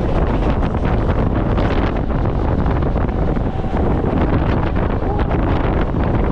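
Wind buffeting the microphone aboard a moving Indian suburban local train, over the steady running noise and clatter of the train.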